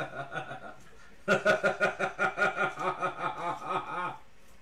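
A man laughing in quick, even pulses, in two long runs with a short break about a second in.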